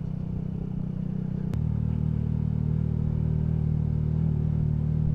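Small single-cylinder motorcycle engine, the Yamaha MT-125 with a Scorpion aftermarket exhaust, running at low revs. There is a click about a second and a half in, after which the engine note runs smoother and a little louder.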